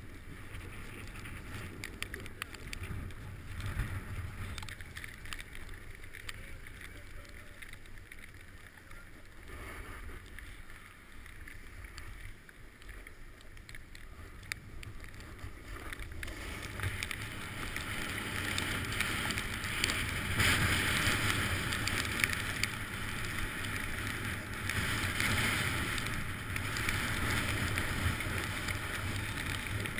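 A snowboard sliding down a groomed run, its base and edges scraping over packed snow in a steady rushing noise. The noise grows louder from about halfway through.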